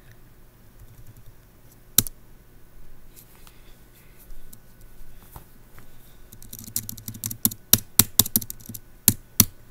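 Computer keyboard keys being pressed: a single sharp click about two seconds in, then a quick run of key presses in the second half, the loudest near the end.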